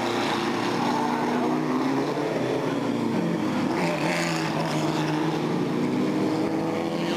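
Engines of several historic front-engined single-seater racing cars running at speed as a group passes close by, several engine notes overlapping, one dropping in pitch about three seconds in as a car goes by.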